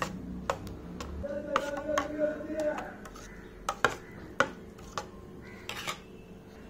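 Steel spoon stirring a thick batter in a stainless steel bowl: soft scraping with scattered light clinks of metal on metal.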